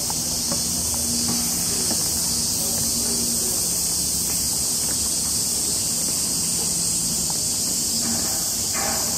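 Cicadas in the surrounding trees droning in a steady, high-pitched, unbroken chorus.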